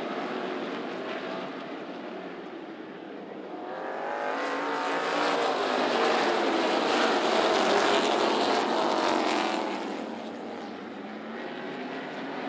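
Pack of NASCAR K&N Pro Series stock cars' V8 engines at race speed. It grows loud as the field passes close by, from about four to ten seconds in, with engine pitches sliding up and down, then fades back.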